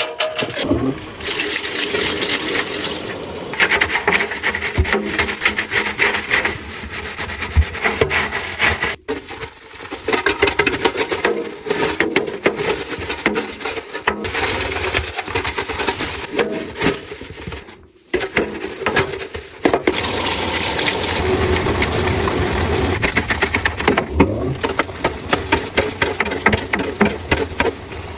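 Washing-machine cleaning sounds cut together one after another: water and liquid noises mixed with clicks, clinks and knocks, changing abruptly several times.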